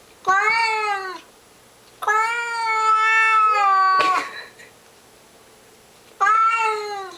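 Domestic tabby-and-white cat yowling three times, long drawn-out cries with the middle one held about two seconds: a territorial battle cry at a stray cat outside the door.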